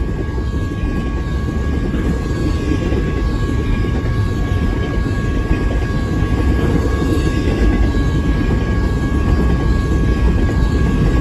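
Double-stack intermodal train's container well cars rolling past at speed: a loud, steady rumble of steel wheels on rail that grows a little louder. Two thin steady high tones sound above the rumble.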